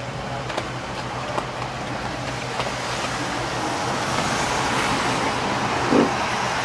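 Steady low mechanical hum under a rushing noise that swells about halfway through, with a few faint clicks.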